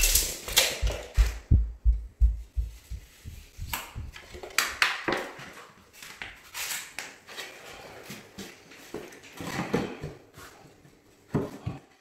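Scattered knocks, taps and scrapes of plasterboard pieces being handled on a concrete floor, with low thumps in the first few seconds.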